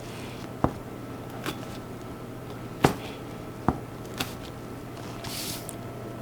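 Kitchen utensils knocking on a work surface while dough is handled: about five sharp, separate clicks over a few seconds and a brief hiss near the end, over a steady low hum.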